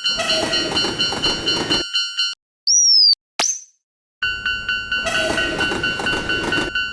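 Railroad crossing warning bell ringing about three strikes a second over the rushing noise of a passing train, cut off abruptly about two seconds in. A short high falling whistle-like tone and a quick zip follow, then after a moment of silence the crossing bell and train noise start again.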